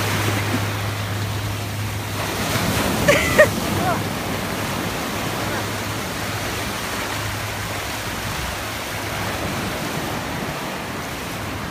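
Ocean surf breaking and washing up the beach as a steady rushing noise, with a brief high cry about three seconds in.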